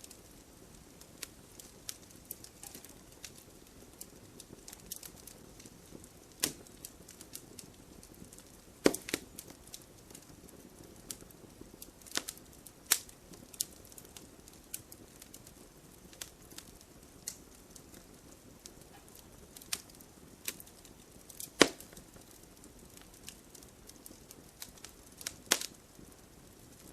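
Firewood burning: a low, steady rush of flames with scattered small crackles and several sharper pops, the loudest about 9, 13 and 22 seconds in.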